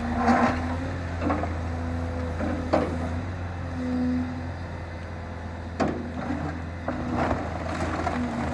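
Demolition excavator's diesel engine running steadily, with a droning hydraulic tone that swells and fades as the arm moves. Scattered sharp knocks and clatters from the attachment and rubble are heard a few times.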